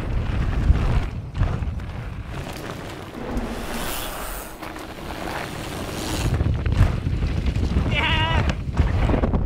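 Mountain bike tyres rolling and rattling fast over a dirt trail, with wind buffeting the helmet-camera microphone. About eight seconds in comes a brief, wavering high whoop.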